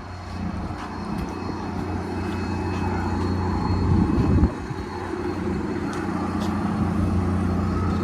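A steady low engine drone, growing slightly louder, with a louder rumble about four seconds in that stops abruptly.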